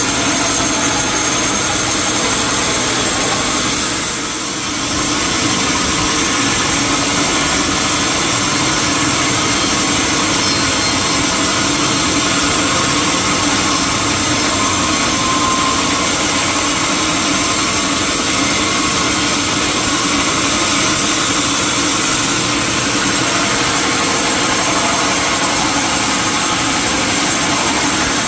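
Sawmill machinery running steadily, a loud, even mechanical noise, with a brief dip about four seconds in.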